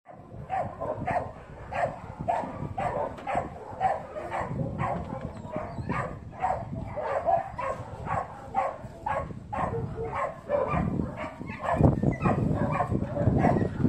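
A dog barking over and over in short, evenly paced barks, about two a second. A low rumbling noise joins under the barks near the end.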